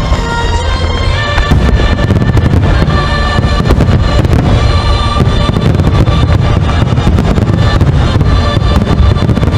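Fireworks bursting and crackling in rapid, dense volleys with a low rumble, over music with held notes.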